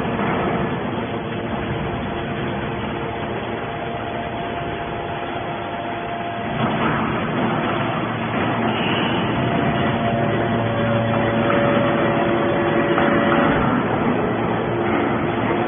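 Horizontal metal scrap baler running: a continuous mechanical din with steady humming tones that change pitch, growing louder about six and a half seconds in.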